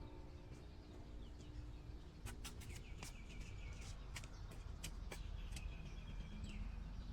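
Birds chirping: a run of sharp, quick chirps and short whistled notes in the middle, over a faint low steady rumble.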